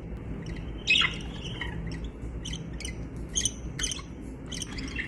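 Budgerigars chirping and squawking in quick, short calls, with a louder squawk about a second in, over a steady low hum.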